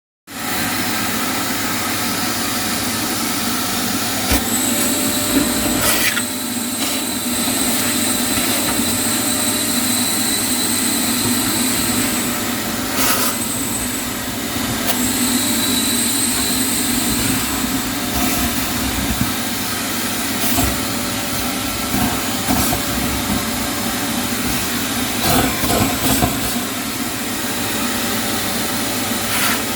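A machine running steadily with a hiss and a high whistle that comes and goes, broken by a few sharp knocks.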